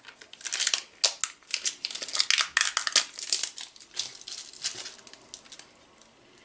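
Protective plastic film being peeled off a clear acrylic cover and crumpled: a dense run of crackling and crinkling that thins out after about five seconds.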